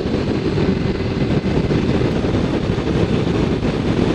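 Kawasaki Ninja 400 motorcycle riding at road speed: its parallel-twin engine running steadily under wind rush on the microphone.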